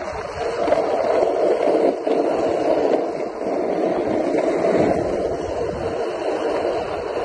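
Skateboard wheels rolling fast over asphalt, a steady rolling noise with small rises and dips in level.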